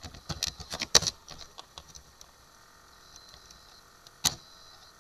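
Computer keyboard keystrokes: a quick run of clicks in the first second and a half, then one sharp click a little over four seconds in.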